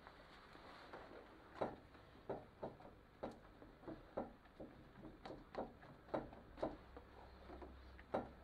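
A damp natural sponge dabbed against a painted sample board on an easel: a run of light, irregular taps, about two a second, starting about a second and a half in.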